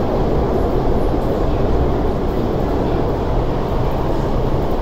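MTR SP1900 (IKK) electric train running steadily between stations, heard from inside the passenger car: an even rumble of wheels on rail and the train's running noise.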